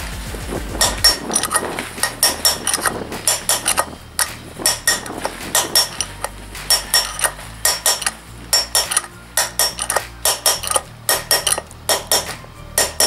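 Hammer striking a steel drift punch set through the hub of a Honda VF1000F front wheel, driving out a tight, stuck wheel bearing. A steady run of sharp, ringing metal blows, two or three a second, with a brief lull about four seconds in.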